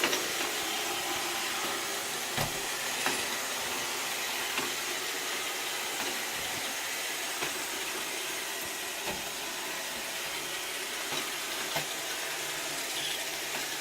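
iRobot Roomba 680 robot vacuum running steadily, its suction motor and brushes making an even whirring hiss, with a few light knocks along the way. It is a little louder than expected.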